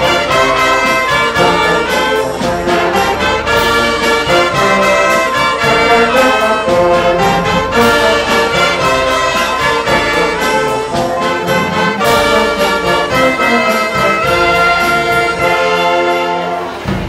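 A concert wind band of clarinets, saxophones, brass and tuba playing together, led by a conductor.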